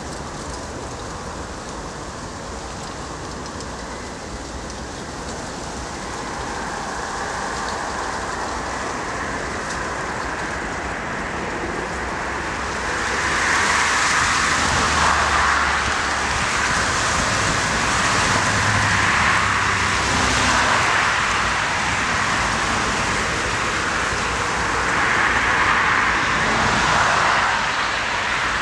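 Twin rear-mounted turbofan jet engines (General Electric CF34) of a Canadair CRJ-900 on its landing rollout: a broad, rushing jet roar that builds slowly, grows much louder about halfway through, and peaks again near the end as the jet comes close and passes.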